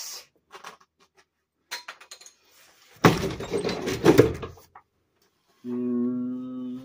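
A few light clicks, then a gloved hand rubbing and brushing over the phone's microphone for about a second and a half. Near the end a steady hummed note starts up.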